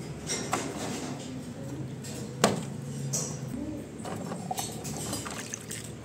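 Water draining from the drain-pump filter opening of an LG front-load washing machine and splashing into a steel basin as the filter is unscrewed. A sharp click stands out about two and a half seconds in.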